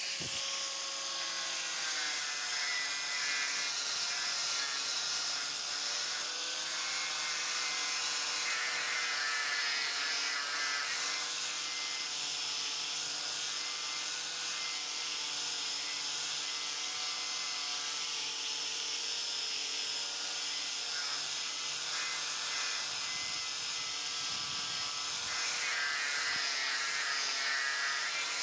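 Angle grinder running steadily: a continuous motor whine whose pitch wavers slightly, over a hiss.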